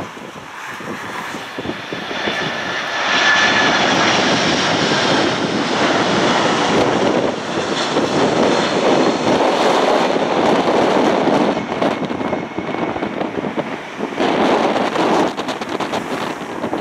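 Jet engines of a Boeing 767-300 airliner on final approach, flying past. The sound swells over the first few seconds with a high fan whine on top, then holds as a loud, steady jet roar as the aircraft nears touchdown.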